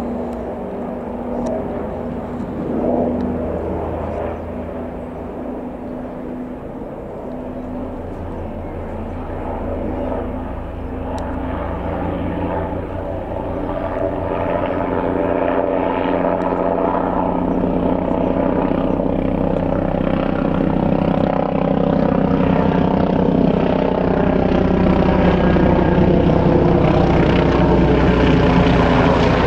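AgustaWestland AW169 air ambulance helicopter flying in low, its twin turbines whining over the fast beat of its rotor, growing steadily louder as it comes almost overhead.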